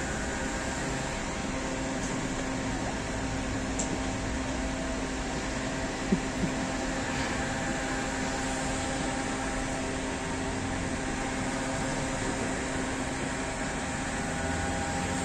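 Steady mechanical hum with a few steady tones running through it, and a single sharp click about six seconds in.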